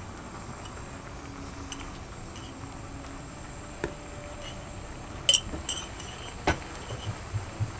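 Kitchen dishes and utensils clinking as ramyeon is prepared: a few sharp, ringing metal-and-glass clinks, the loudest about five seconds in, then some duller knocks near the end, over steady background noise.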